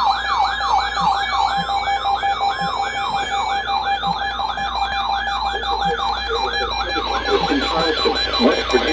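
Electronic siren in a fast yelp: a rising wail repeated about three times a second over a steady tone. A voice faintly joins underneath in the second half.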